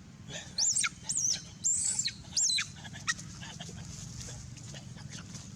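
An animal giving four short, high-pitched squealing calls in quick succession, each rising then dropping sharply in pitch.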